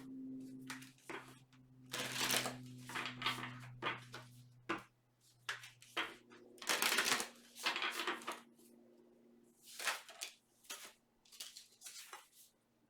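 Tarot or oracle cards being shuffled and handled, a series of irregular papery riffles and slaps over a faint low steady hum.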